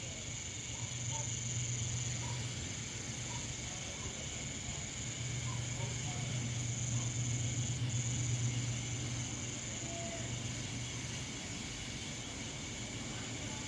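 Steady high-pitched trill of night crickets over a low steady hum.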